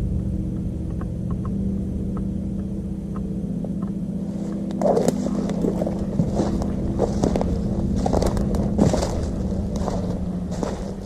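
Steady low hum of an engine running throughout. From about four and a half seconds in, irregular crunching and scraping, like footsteps moving through dry brush and leaves.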